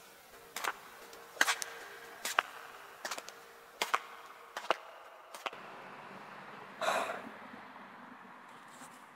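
Footsteps on sandy, gritty ground at a walking pace, about one step every 0.8 seconds for some five seconds, followed by a short rustle near the end.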